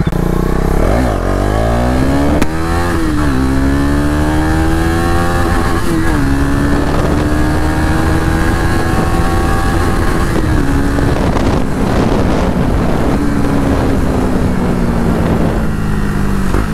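KTM Duke 250's single-cylinder four-stroke engine, its exhaust running without the dB killer. The engine revs up and shifts up through the gears in the first few seconds, the pitch dropping at each shift. It then settles into a steady cruise and slowly falls in pitch as the bike eases off near the end.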